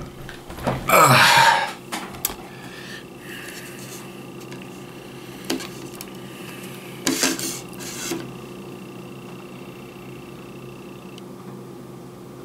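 Movement and handling noises: a loud scrape about a second in, then a few sharp knocks and taps, over a steady background hum and a faint high tone that stops near the end.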